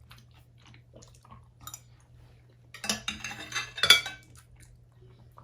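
Cutlery clinking and scraping against dishes during a meal, with scattered small taps and then a busier run of clinks about three seconds in, the sharpest a little before four seconds.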